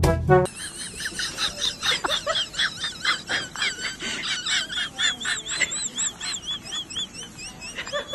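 A short burst of brass music opens, then gives way to rapid high-pitched chirping calls that rise and fall, several a second.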